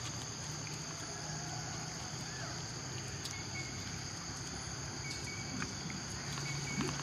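Insects droning steadily in a high, even chorus across the forest, with a few faint short chirps now and then.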